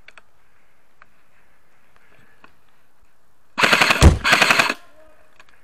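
Specna Arms SA-A08 electric airsoft rifle firing full auto for about a second, its gearbox cycling in a fast, loud rattle, with a dull thump partway through.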